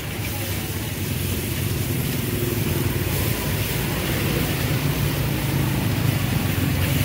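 Street traffic with a motor vehicle's engine running close by, a steady low rumble that swells a little after about two seconds, over the hiss of noodles sizzling as they are stir-fried in a wok.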